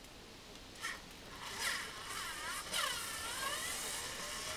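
Cordless screwdriver running as it backs a screw out of a plastic mower deck, a whine whose pitch sweeps up and down for about three seconds from about a second and a half in. A short click comes just before it.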